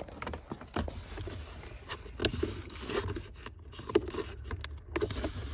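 Hands working in a car's dashboard stereo opening: wiring and plastic parts scraping and rustling, with irregular clicks and two sharp knocks, the first about two seconds in and the second about four seconds in.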